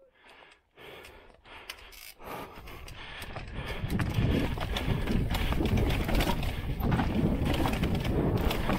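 Mountain bike dropping into a descent: a couple of quiet seconds with a few light clicks, then wind on the microphone and the tyres and frame rattling over the rough trail build up from about two seconds in and stay loud.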